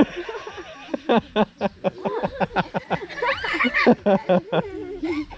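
A toddler laughing and squealing in a high voice, with sharp crinkling of a small plastic bag being handled.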